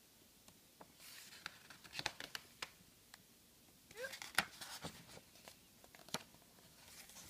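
Paper pages of a coloring book being turned by hand: faint rustling and paper flicks about a second in, then again around four seconds in as a page is swung over, with a single sharp tick near the end.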